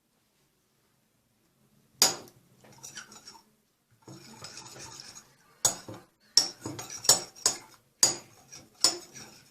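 A spoon stirring PVA glue mixed with borax glycerin in a container, clinking and scraping against the container's sides in repeated strokes. It starts about two seconds in; before that there is no sound.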